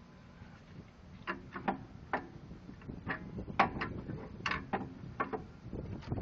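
Irregular metal clicks and knocks, about a dozen in all starting about a second in, from brake parts and tools being handled while an old brake pad is set against the caliper piston to push it back.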